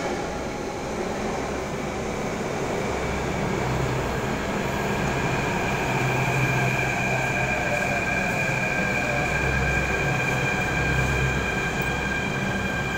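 A Delhi Metro train pulling into an underground station and slowing to a stop, with a steady rumble of the passing cars. A high, steady squeal grows stronger from a few seconds in as it slows.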